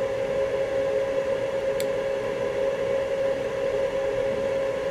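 Steady hum of a small motor or fan, a constant mid-pitched tone over an even hiss of air. One faint click about two seconds in.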